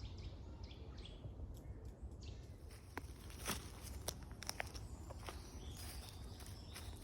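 A bird calling with a quick run of short falling notes for the first couple of seconds. Then footsteps crackle on the woodland floor as scattered sharp clicks, over a steady low rumble.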